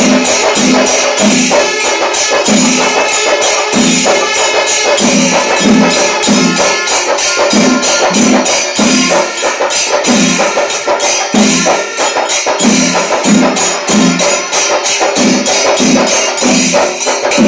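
Fast, loud percussion music: drums beating a repeating pattern about twice a second under small cymbals clashed several times a second.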